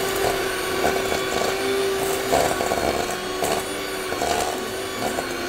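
Electric hand mixer running at a steady speed, creaming butter and brown sugar in a stainless steel bowl, with a few clicks of the beaters against the bowl.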